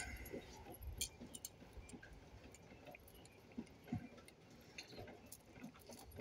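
Faint, scattered small clicks and light rattles from hands handling wires and parts on a workbench.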